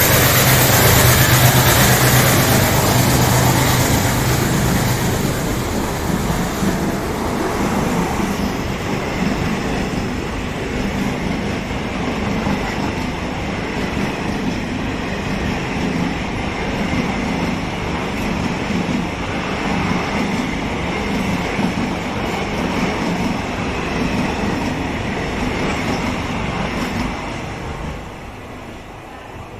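An ALCO diesel locomotive's engine hum falls away in the first few seconds, and then the express train's coaches rumble and clatter past on the rails. The sound drops off sharply near the end.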